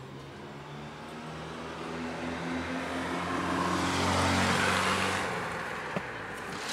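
A car driving past on the street. Its engine hum and tyre noise build to a peak about four seconds in, then fade.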